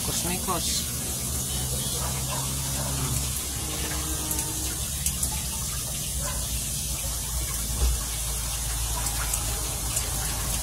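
Steady running and splashing water in a kitchen basin.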